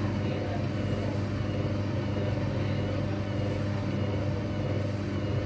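Hoover washing machine on its spin cycle, the drum and motor running at a steady speed with a steady low hum.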